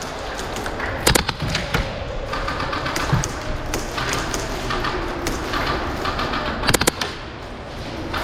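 Airsoft guns firing short bursts of a few rapid shots, about a second in and again near the end, over a steady background of noise.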